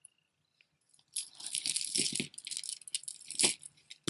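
Beaded costume jewelry rattling and clicking as it is handled, the beads clattering rapidly against each other. It starts about a second in.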